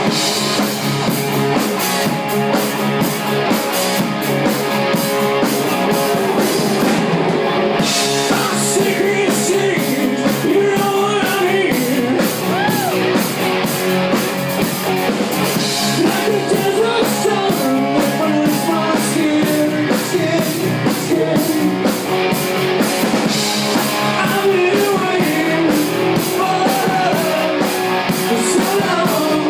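Live rock band playing loud, with electric guitars, bass guitar and drum kit over a steady beat.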